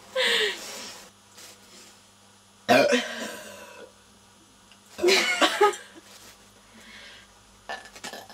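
Burps from a girl full of fizzy Irn Bru: a short breathy one at the start, then two loud ones, nearly three seconds in and about five seconds in, each trailing off over a second.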